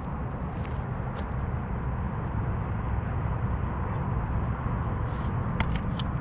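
Wind buffeting the microphone, a steady low rumble, with a few light clicks near the end.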